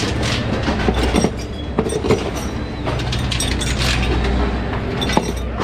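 Metal hand tools clicking and clanking against a race engine's exhaust header pipes, in scattered knocks, over a steady low hum.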